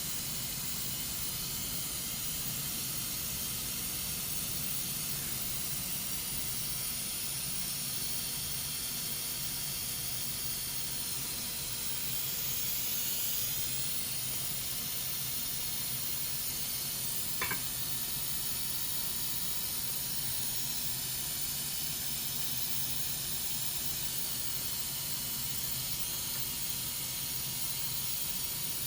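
Steady hiss, swelling slightly about halfway through, with one short click about two-thirds of the way in.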